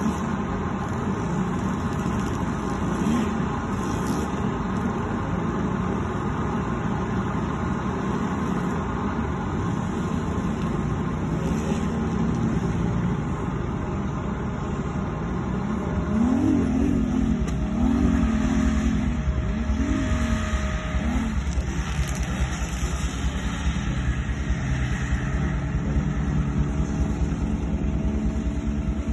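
Racing hovercraft's engine and thrust propeller running as it travels over grass. From about halfway through, the revs rise and fall four or five times, then hold steady at a higher pitch. The engine is under tuning and, by the owner's account, runs rich, fouling its plugs.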